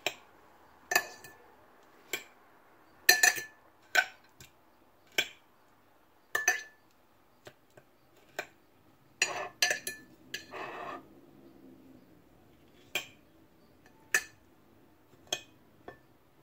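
A metal fork clinking against ceramic dishes as cut strawberries are lifted from a plate into a bowl of yogurt. There are about a dozen sharp clinks, roughly a second apart, some of them ringing briefly, with a short stretch of scraping and clatter just before the middle.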